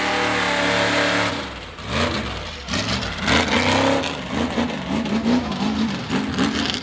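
Mega mud truck engine running at high revs, dropping off about a second and a half in, then revving up and down repeatedly as the truck accelerates away.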